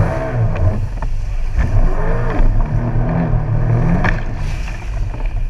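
Jet ski engine running on the water, its pitch rising and falling once about two seconds in.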